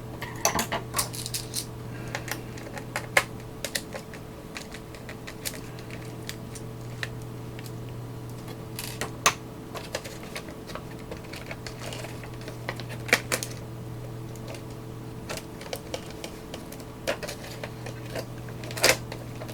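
Scattered clicks and taps of a screwdriver, screws and small metal parts being handled while a cassette multitrack recorder's shielding and case are taken apart, over a steady low hum.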